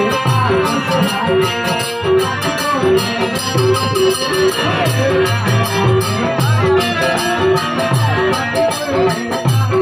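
Amplified music from a loudspeaker: a low drum beat under a short note repeated at an even pace, with a man singing into a microphone.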